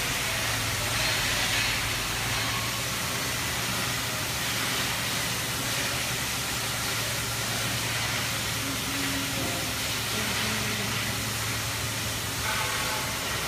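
Steady low machine hum under a constant hiss from a robotic plasma cutting cell as its robot arm swings the plasma torch into position, with no cutting arc struck.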